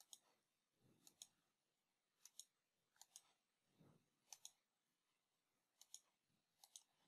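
Near silence with faint computer mouse clicks, about seven quick pairs of clicks.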